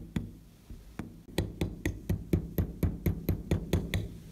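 A small hammer tapping a pin punch to drive a pin out of a rusty steel pistol frame (Astra 4000 Falcon). A few separate taps come first, then a steady run of about four sharp metallic taps a second, each with a short ring.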